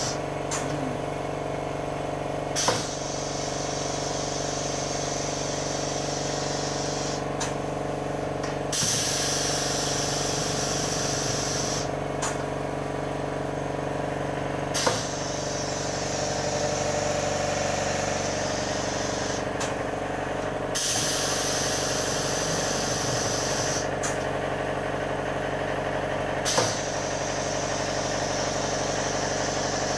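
Pneumatic screen-printing machine for plastic bags cycling: its air valves and cylinders click or thump every three to six seconds, several strokes followed by a long hiss of compressed air, over a steady machine hum.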